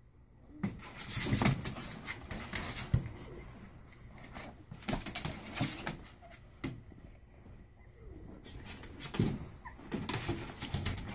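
Pug puppies scrambling in a plastic kiddie pool: claws clicking and scratching on the plastic and on rustling towels, in three bursts of activity.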